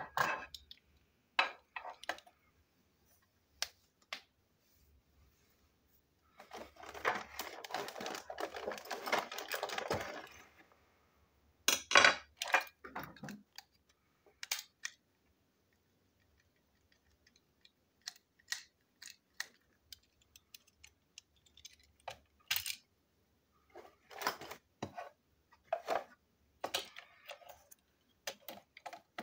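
Small hard plastic parts of a toy train coach being handled and fitted together: scattered sharp clicks and knocks, with a denser run of handling noise lasting about four seconds starting about six seconds in.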